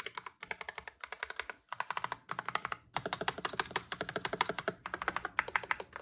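Fast typing on a Razer Huntsman V2 Analog keyboard with Razer Analog switches and double-shot PBT keycaps: a rapid stream of key clacks, broken by short pauses about one and a half and three seconds in.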